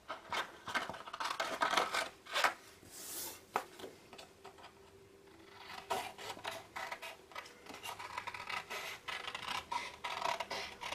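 Scissors cutting through a sheet of patterned scrapbook paper in a run of short snips, with a pause of a second or two near the middle before the cutting resumes.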